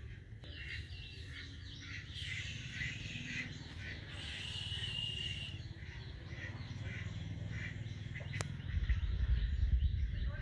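Small birds chirping in the background, with many short calls and one held high trill about four seconds in. A low rumble comes in near the end.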